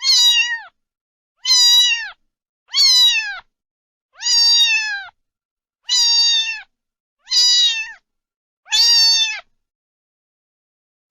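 A cat meowing over and over: seven similar high-pitched meows about a second and a half apart, each dropping in pitch at the end.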